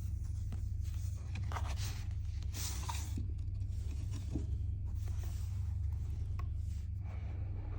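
Packaging being handled and unwrapped: irregular rustling, scraping and tearing, loudest a couple of seconds in and again about halfway, over a steady low hum.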